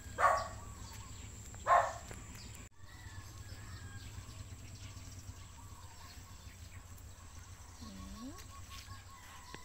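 A dog barks twice in the first two seconds. Then there is quiet outdoor background with faint bird chirping.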